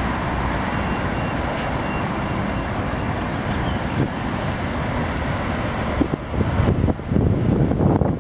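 Steady road traffic noise from cars passing on a city street, with a city transit bus going by close near the end. From about six seconds in, wind buffets the microphone in irregular gusts.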